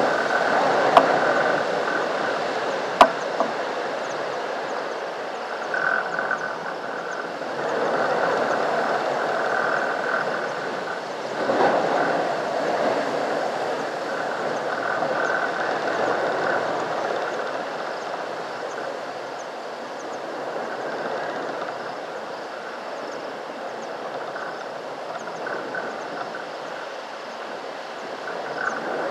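Continuous outdoor animal chorus that swells and fades, with two sharp clicks in the first few seconds.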